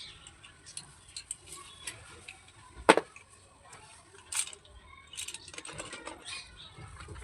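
Slate pencils being handled, giving irregular small hard clicks and taps, with one sharp loud click about three seconds in and a cluster of faster ticks near the end.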